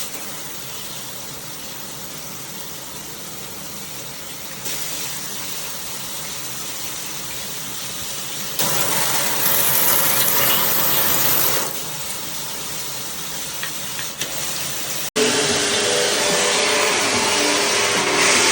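Water spraying hard from a JOMST handheld filtered shower head: a steady rushing hiss that gets louder and softer several times, with a sudden break about fifteen seconds in.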